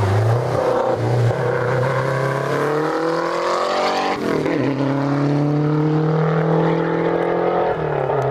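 Rally car, a Lancia Delta Integrale, accelerating hard away. The engine rises in pitch, changes up a gear about four seconds in, then rises again through the next gear.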